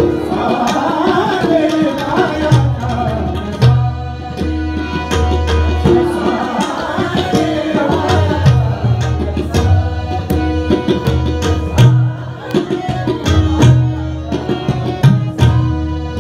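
A man sings to his own harmonium accompaniment, with tabla playing a steady rhythm whose deep bass strokes pulse underneath. The sung phrases come and go, and the harmonium's sustained notes fill the gaps.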